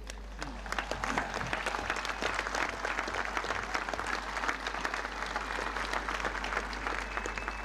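Large outdoor crowd applauding, a steady dense clapping that runs until the speaker resumes.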